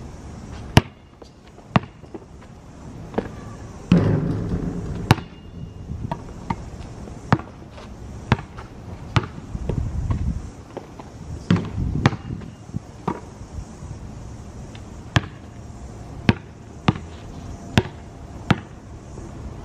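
A basketball bouncing on an asphalt court as it is dribbled: sharp single bounces, mostly about a second apart and unevenly spaced. There is a louder thud about four seconds in.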